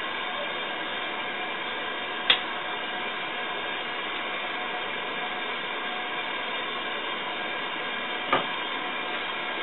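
Steady hiss of water running into a bathtub, with two short sharp clicks, one about two seconds in and one near the end.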